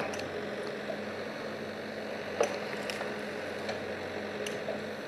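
Komatsu WB97R backhoe loader's diesel engine running steadily, with a few sharp knocks, the loudest about two and a half seconds in.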